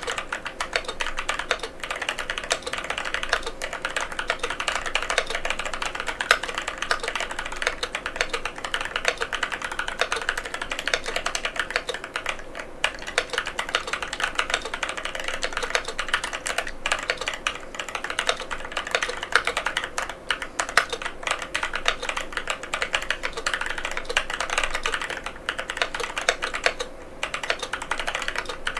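Fast, continuous typing on a NovelKeys NK87 aluminium mechanical keyboard with Durock White Lotus tactile switches: a dense stream of keystroke clicks with occasional heavier spacebar strokes and a few brief pauses.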